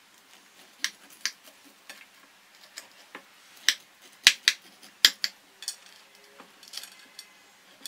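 Kitchen knife cutting through the crisp, browned crust of a semolina handvo cake on a plate: a series of sharp crunching clicks, the loudest two about halfway through.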